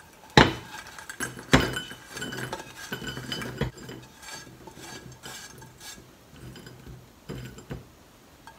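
Brown-sugar-coated roasted soybeans being scraped out of a metal saucepan into a small ceramic bowl with a wooden spatula: sharp clinks of pan and beans against the bowl about half a second and a second and a half in, a cluster of knocks around three seconds, then softer scraping with a couple more knocks near the end.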